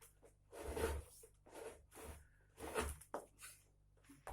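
Four short rubbing, scraping strokes about a second apart, from hands working on a mridanga under repair, fitting its tight leather head. A short click comes near the end.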